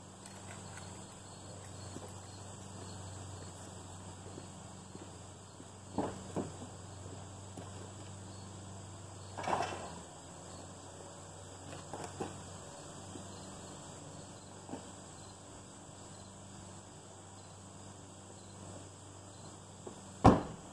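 Crickets chirping steadily in the background, with a few knocks and clunks from a car door being opened about halfway through and a sharp slam of it shutting near the end.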